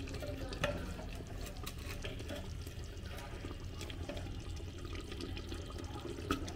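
A steel ladle stirring thick, wet mutton masala in a clay handi: squelching and scraping, with a few sharp clicks of the ladle against the earthenware pot, the loudest about half a second in and another near the end, over a steady low background noise.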